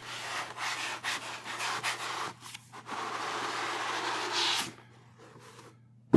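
Cardboard and packaging rubbing and scraping as a snugly fitted inner box is slid up out of its cardboard outer box, with small crinkles and taps; the scraping grows louder for its last second or so and stops about a second and a half before the end.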